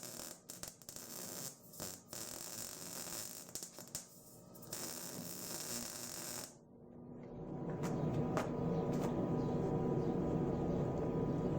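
MIG welder arc crackling and hissing in short runs with brief breaks, as a weld bead is laid on a mower's steel frame. The arc stops about six and a half seconds in, and a steadier low hum rises in its place.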